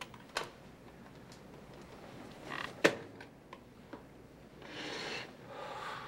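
Desk telephone being handled on a table: a few sharp clicks and knocks from the handset, the loudest about three seconds in, then a scraping rub as the phone is moved across the tabletop near the end.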